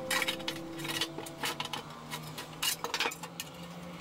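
Light metallic clinks and taps of a thin stainless steel tray being set into and shifted about in a sheet-aluminium box, a dozen or so short scattered ticks.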